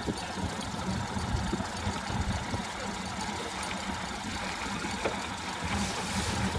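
Small boat's outboard motor idling steadily under a rumble of wind and water, with a rushing hiss rising near the end.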